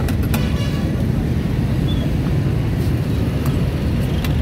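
Steady low rumble of street traffic, with a few short sharp clicks about half a second in and again near the end.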